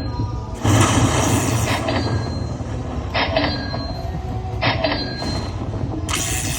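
Lightning Link slot machine sounds over a constant low casino-floor din, with short bursts of electronic tones and chimes every second or two.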